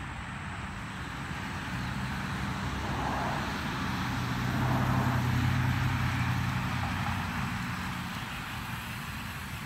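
A vehicle's motor with a steady low hum and hiss that swells to a peak about halfway through, then fades.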